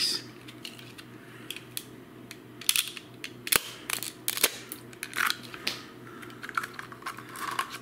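Plastic hand-held egg-cracker gadget clicking and rattling irregularly as it is squeezed and handled around an egg, with one sharp click about three and a half seconds in.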